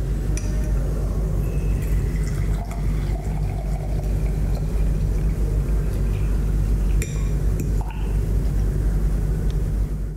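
Water running from the push tap of an Alkaril ion water filter dispenser into a drinking glass as it fills, with a few sharp clicks and clinks of the glass, over a steady low rumble.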